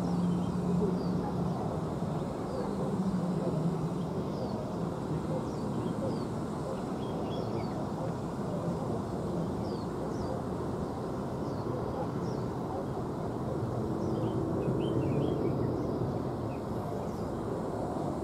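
Airbus A350-900's jet engines idling, heard from a distance as a steady low rumble with a faint hum. Small birds chirp briefly and repeatedly over it.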